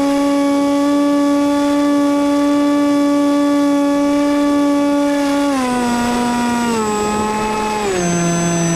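An RC plane's motor and propeller running at a steady high whine, heard close up from a camera on the plane. About five and a half seconds in, the pitch drops in three steps as the motor slows.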